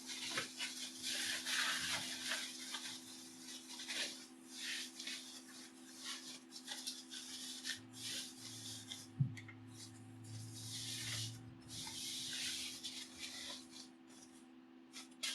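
Plastic packing wrap rustling and crinkling in repeated irregular bursts as it is pulled off an electric guitar.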